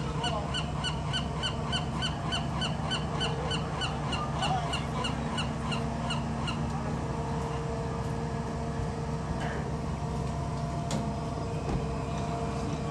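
An animal calling in a quick, even series of short, slightly falling notes, about three a second, that stops about six and a half seconds in, over a steady low hum.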